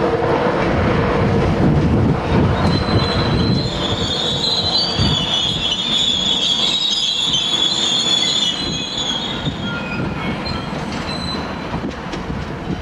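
East Coast InterCity 225 electric train running over the pointwork, its wheels rumbling on the rails, with a high wheel-flange squeal from about three and a half seconds in that dies away around nine seconds.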